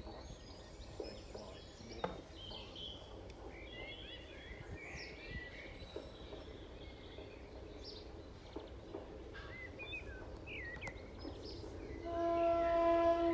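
Birds chirping and singing over steady low outdoor background noise. About twelve seconds in, a louder, steady pitched tone with a rich, horn-like sound starts and lasts to the end.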